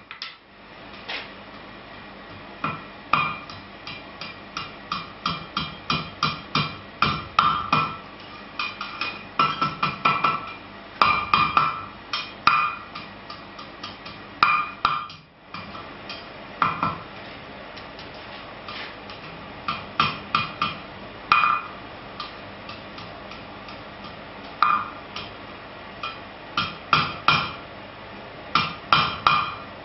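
Hand hammer striking hot iron on a steel anvil in quick runs of ringing blows with pauses between. Later blows fall on the anvil horn as the rod's red-hot end is bent round into a ring.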